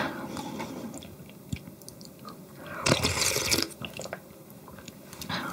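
A person chewing food close to the microphone, with a louder burst of noise about three seconds in.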